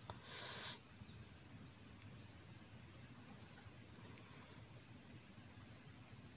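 Steady, high-pitched chorus of insects, an unbroken drone, over a faint low background hiss.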